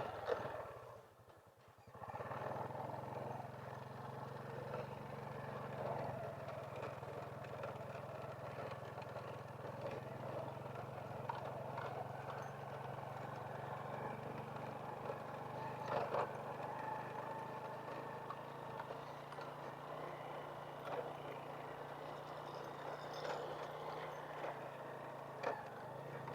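Honda Wave 100 cc motorbike's small single-cylinder four-stroke engine running steadily while riding, settling into an even hum about two seconds in.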